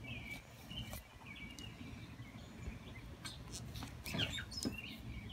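Birds chirping in the background, with a few light clicks and taps and a low steady rumble of outdoor noise.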